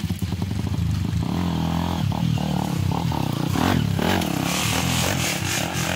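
Dirt bike engine revving on and off, its pitch rising and falling several times as the bike pulls through the trail.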